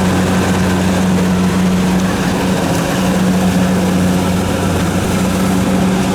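Kubota DC-70 combine harvester's diesel engine running steadily under load, a constant low hum with mechanical clatter and no change in speed.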